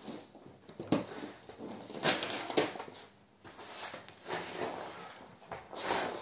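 Rustling and scuffing of a cloth mat being spread over a concrete floor, with irregular knocks and shuffles as a person kneels down on it.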